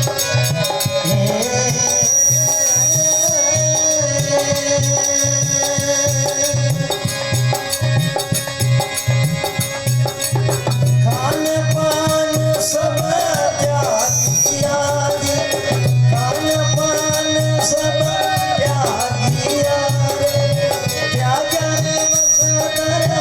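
Bhajan folk music: long held melodic notes over a steady, regular hand-drum beat with a shaken rattle keeping time, the melody sliding in pitch in places.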